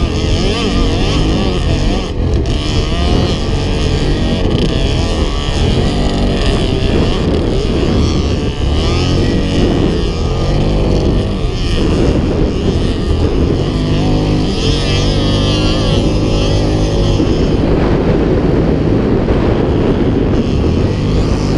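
Yamaha Grizzly 700 quad's single-cylinder engine under way, revving up and easing off again and again as it climbs and runs through soft sand.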